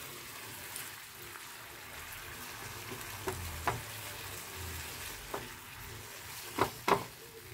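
Chayote strips stir-frying in a non-stick pan with a steady sizzle while a silicone spatula turns them. The spatula knocks against the pan now and then, twice in quick succession near the end.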